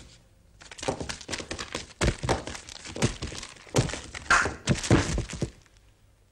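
A quick, irregular run of knocks, thumps and clatter from a cartoon's sound effects, lasting about five seconds and then stopping abruptly.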